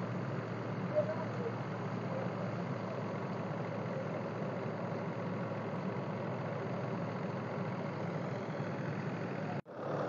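Tractor-driven wheat thresher running steadily, the engine and threshing drum making a continuous low mechanical drone. The sound cuts out abruptly for an instant near the end.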